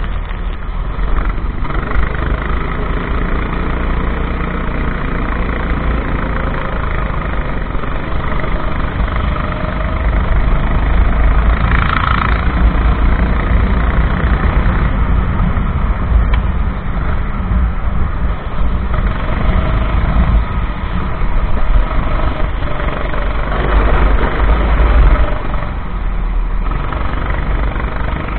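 Racing kart engine running continuously during a race, a loud, heavy low rumble that swells and eases with the throttle.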